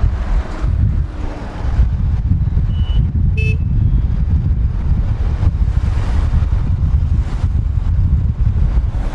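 Heavy road traffic heard from a moving bike: a steady low rumble of engines and wind on the microphone, with one short vehicle horn toot about three and a half seconds in.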